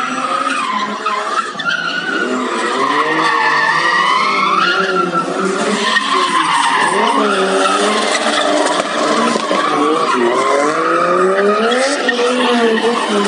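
Two drift cars, a Nissan GT-R and a Toyota Supra, sliding in tandem: engines revving up and down in repeated rises and falls of pitch, with tyres squealing and skidding on the asphalt.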